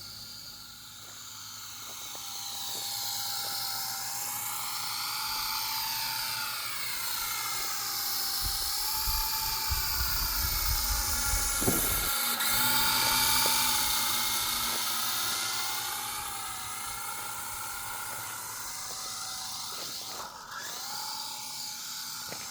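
RC helicopter's motor and rotor giving a steady high whine in flight, with a wavering hiss that swells as the helicopter comes closer about halfway through and then fades.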